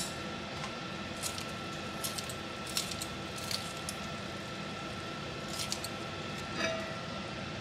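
Chicken broth boiling in a large pot on the stove: scattered small bubbling pops over a steady hum with a faint high whine.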